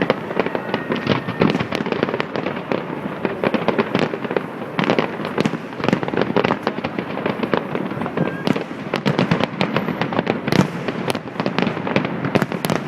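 Fireworks display: a dense, continuous barrage of overlapping bangs and crackling.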